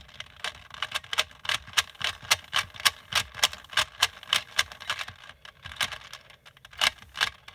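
3x3 Rubik's Cube clicking as its middle slice and top layer are turned in quick alternation, about three to four sharp clicks a second.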